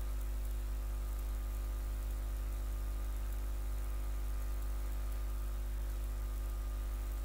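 Steady low hum with a hiss behind it, the background noise of the recording setup.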